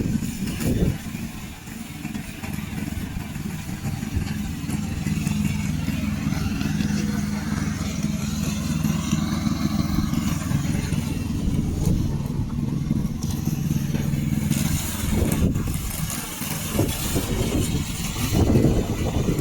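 Combustion engine of a remote-controlled slope mower running steadily, with some change in its sound in the last few seconds.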